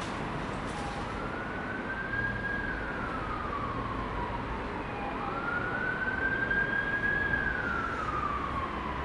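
Emergency-vehicle siren wailing, its pitch slowly rising and falling about every four to five seconds, over a low hum of traffic.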